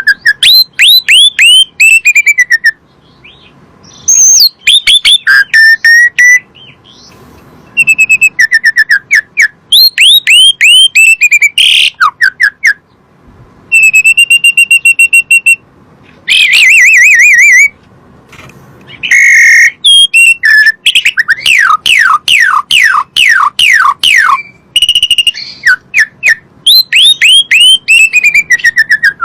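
Asian pied starling (jalak suren) singing. It gives loud phrases of rapid, downward-sweeping whistled notes with short pauses between them, and holds one steady whistle a little past the middle.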